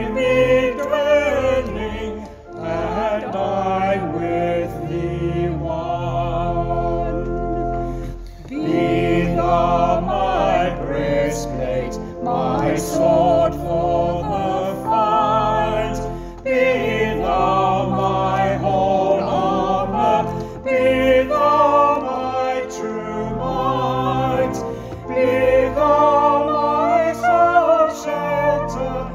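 Choir singing a hymn with instrumental accompaniment; the voices are held and wavering over sustained low bass notes.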